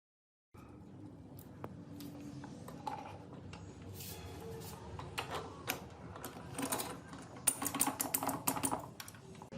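Irregular clicking and tapping of small metal parts and hand tools being handled, starting about half a second in and growing busier in the second half.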